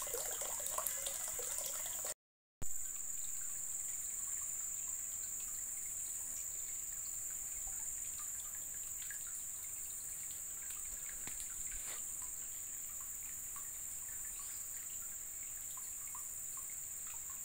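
Hot-spring water trickling from a pipe into a concrete bathing pool: a steady hiss of running water with a few scattered drips and small splashes.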